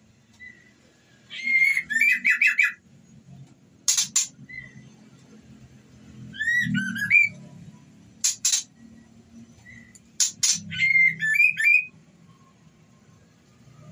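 White-rumped shama (murai batu) calling, billed as a female in breeding condition calling a male: bouts of sharp, clicking chips alternating with short, quick runs of whistled notes, several times over. It is a call that keepers play to rouse a male shama into breeding mood.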